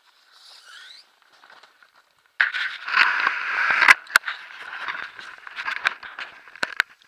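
Footsteps crunching and rustling through dry fallen leaves. The sound starts about two seconds in, loudest for the first second and a half, then goes on as lighter, uneven crackles.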